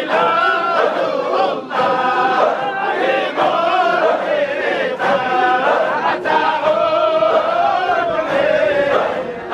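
A large crowd of men chanting dhikr together in unison, in repeated short phrases that break every second or so.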